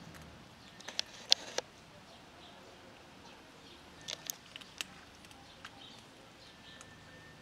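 Cats crunching dry kibble from a plastic tub: a few sharp crunches and clicks in two short clusters, about a second in and again about four seconds in.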